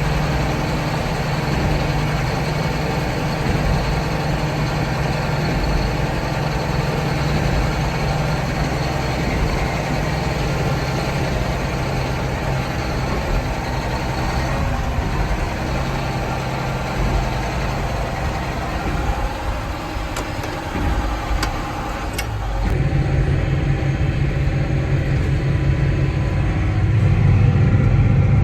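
An engine running steadily with a low hum; a little over two-thirds of the way through it dips briefly, then settles louder and lower.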